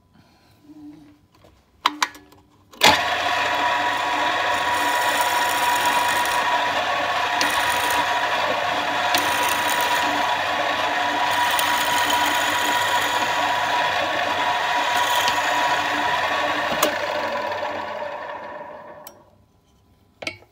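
Drill press motor starting and running steadily with a whine while its bit bores through a small block of wood held in a machine vise, after a couple of clicks about two seconds in. Near the end it is switched off and winds down.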